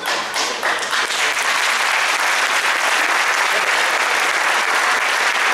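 Audience applauding, a few separate claps at first, then steady dense clapping.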